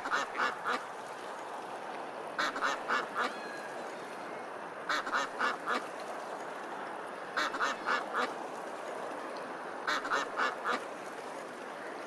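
Duck quacking in quick runs of four, the same run repeating about every two and a half seconds, over a steady background hiss.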